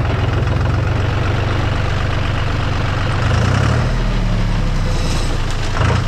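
Tractor engine running steadily with a low, even note that shifts a little past halfway through.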